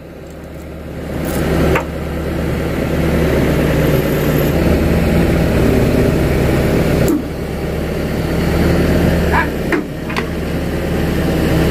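Kato crawler excavator's diesel engine running under hydraulic load as the boom lifts and tips a heavy track frame hung on a chain; it gets louder over the first couple of seconds. A few short metal knocks come near the end.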